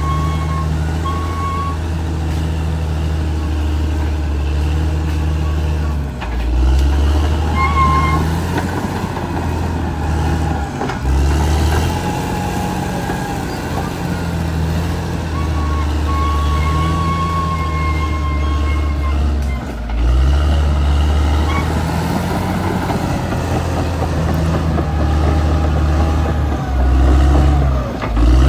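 Caterpillar D6R XL bulldozer's diesel engine working under load, its note dropping and surging several times as it pushes and cuts soil, with a thin high whine coming and going at times.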